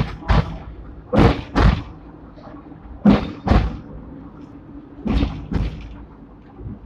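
Steel wheels of a Hong Kong Millennium-series double-deck tram knocking over the rail joints as it runs. The knocks come in pairs about half a second apart, a new pair every two seconds or so, over a low running rumble.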